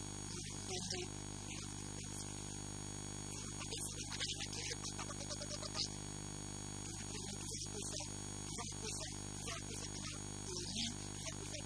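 Steady electrical mains hum and buzz on the recording, with a man's voice coming through it in short stretches.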